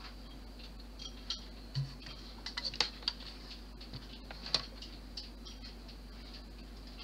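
Scattered light clicks and taps of small parts or tools being handled, clustered in the middle, with a soft low knock about two seconds in, over a steady faint hum with a high whine.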